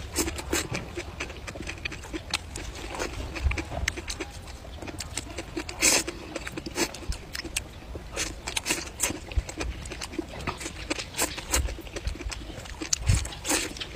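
Close eating sounds: wet chewing and slurping of boiled cabbage and long leafy greens, with many irregular short smacks and clicks and one louder slurp about the middle.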